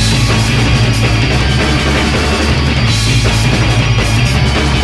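Loud rock music from a full band, electric guitars, bass and drums, playing continuously.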